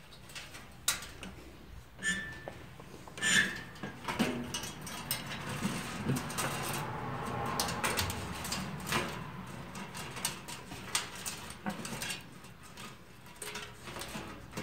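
Handling noise from feeding the front-panel power and reset switch wires through a steel computer case chassis: scattered small clicks and light knocks of plastic bezel and wire against the metal, with soft rustling in the middle.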